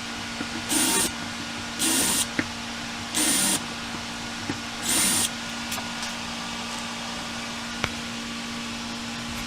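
Power drill run in four short bursts, pre-drilling pilot holes in wood, over a steady low hum.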